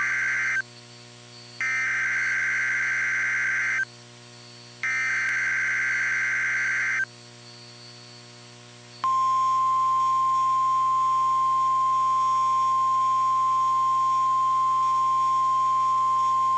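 NOAA Weather Radio emergency alert signal: three bursts of digital data tones, the SAME header that encodes the alert, each about two seconds long with the first cut short. About nine seconds in, the steady single-pitch 1050 Hz warning alarm tone begins and holds. Together they announce a severe thunderstorm watch.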